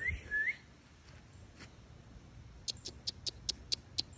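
Small animal or bird calls: two short rising chirps at the start, then from about two and a half seconds in, a quick run of high, thin chips, about five a second.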